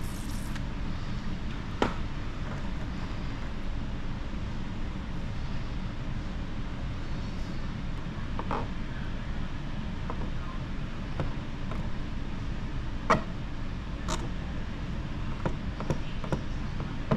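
Steady low rumble of workshop background noise, with a few scattered sharp clicks and taps from the film and tools being handled, the loudest a little past halfway.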